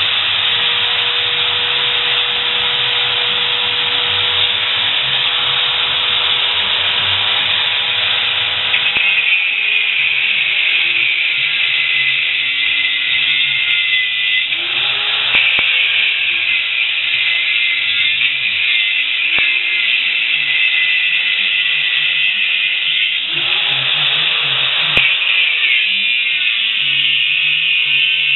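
Handheld angle grinder grinding steel frame tubing, a continuous high, harsh grinding noise whose pitch and texture shift a few times as it bites into the metal. Music plays underneath.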